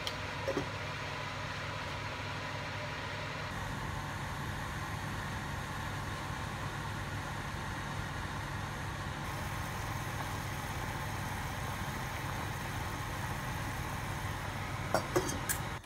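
Steady low hum and hiss of a pot of chicken soup boiling on a gas stove burner. A few light metallic clinks about half a second in and again near the end, like the steel pot lid being handled.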